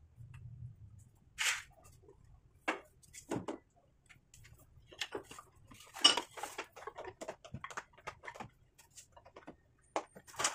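Wooden knocks, taps and a brief scrape as lumber pieces of a wooden rack frame are handled and set in place, the loudest knock about six seconds in.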